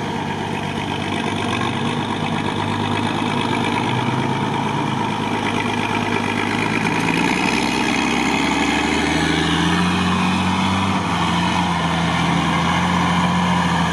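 Mercedes-Benz Unimog truck's engine pulling the truck through deep swamp mud, its revs rising and getting louder about two-thirds of the way in.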